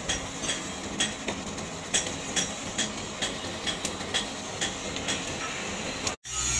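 Coal forge fire burning: a steady rush with sharp irregular crackles, about two a second, cutting off suddenly near the end.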